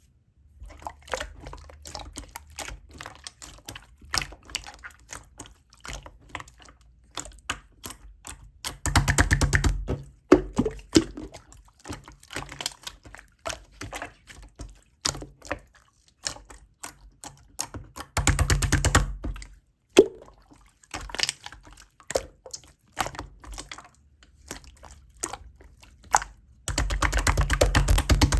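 A green tea latte being stirred in a cup: scattered clicks and taps of the utensil against the container, with three loud spells of very fast stirring, about 9, 18 and 27 seconds in.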